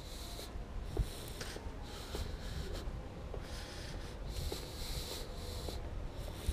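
A person breathing close to the microphone in short hissy puffs about once a second, over a low rumble of handling noise, with a single knock about a second in.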